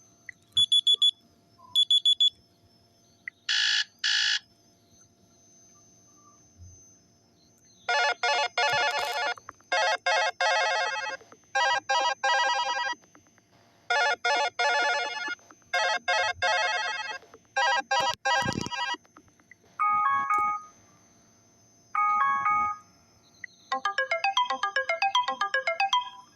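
Built-in ringtone and notification tones of a Sony Xperia L4 smartphone, played back one after another through the phone's speaker: short double beeps, a brief tone, a repeating ringtone pattern lasting about eleven seconds, two short chimes, then a quick run of notes near the end.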